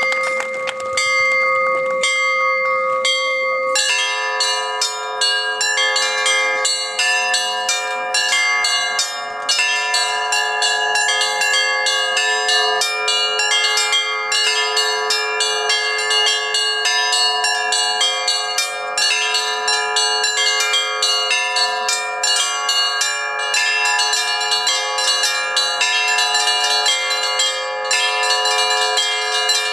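Russian church bells being rung: a few sparse strikes on a couple of bells, then from about four seconds in a full peal, with rapid strikes of the small bells over the steady ringing of the larger ones.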